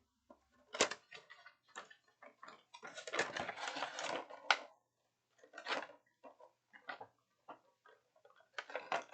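Handling of game pieces and their packaging: scattered sharp clicks, with a denser stretch of rustling in the middle.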